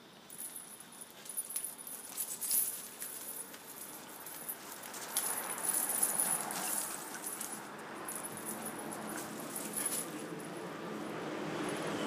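Two dogs playing, with a metal chain jangling and rattling in irregular bursts as they move around.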